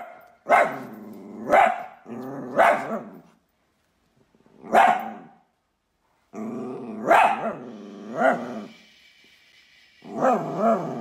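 Dachshund barking about seven times, sharp single barks spaced a second or so apart with pauses, and low growling between the barks.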